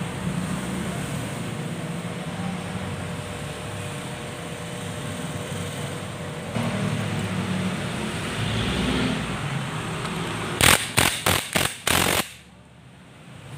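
A DeWalt cordless impact wrench hammers the centre nut of a motorcycle engine's rotor in about five short, loud bursts near the end. Steady workshop background noise runs underneath.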